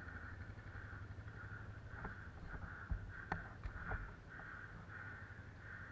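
Soft footsteps in mud and wet grass, a few light knocks and snaps. Under them runs a faint sound that pulses about twice a second, over a low rumble.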